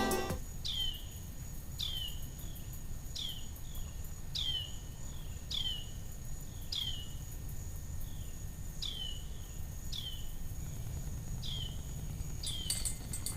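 A bird repeating a short, falling call about once a second, over a steady high-pitched insect trill.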